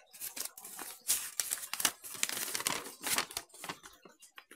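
Folded paper instruction sheet being unfolded and flattened by hand: an irregular run of crinkling and rustling crackles that thins out near the end.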